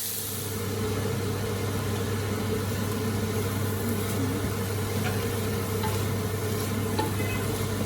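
Onions frying in oil in a pan, a faint even sizzle under a steady low hum.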